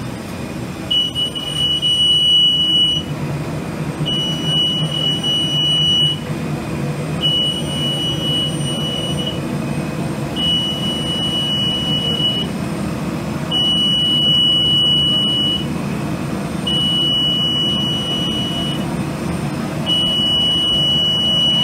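A high electronic beep, each tone about two seconds long, repeating about every three seconds like an alarm, over a steady low hum.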